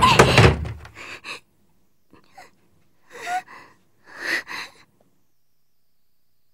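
A frightened girl's gasping breaths: a loud gasp at the start, then several shorter, quieter breaths that fade out about five seconds in.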